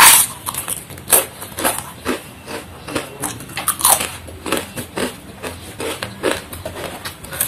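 Close-miked crunchy eating: one loud bite into a mouthful of raw lettuce near the start, then steady chewing with crisp crunches about twice a second.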